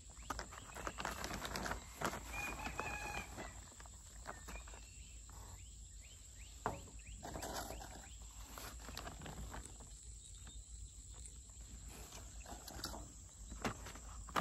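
Soft rustling and scraping of potting mix being scooped by hand from a large plastic bag, with chickens calling now and then in the background.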